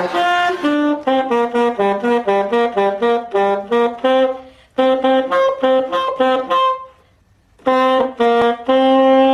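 Saxophone playing a quick run of short, detached notes, stopping briefly about seven seconds in, then resuming and ending on one long held note. It is a learner's practice passage, good for a week's playing but still not clean at the transitions.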